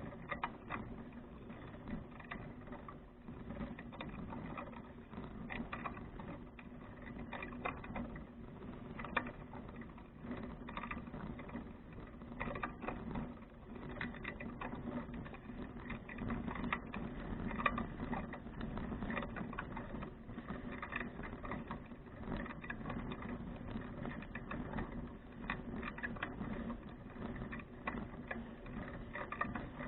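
A 2012 Fuji touring bicycle being ridden, with a constant fast run of small rattles and clicks over a steady low hum, picked up through an action camera.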